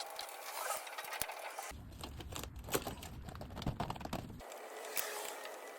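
Crinkling and scraping of a flexible exhaust hose being handled and fitted with a clamp, with scattered small clicks and taps.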